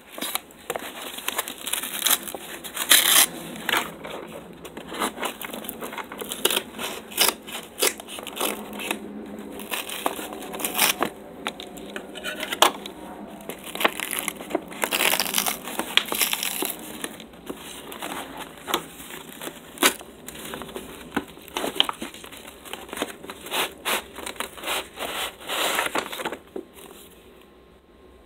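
Brown kraft paper wrapping being snipped with scissors at first, then torn and crumpled open by hand: a dense run of sharp crinkles, crackles and rips that dies down a couple of seconds before the end.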